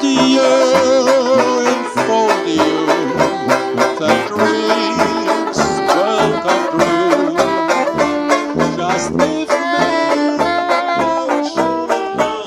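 Upbeat band music with a steady beat.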